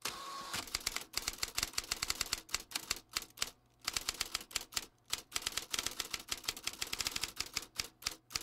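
Typewriter sound effect: rapid key clacks in fast runs with short pauses, typing out on-screen text, with a brief ringing tone at the start.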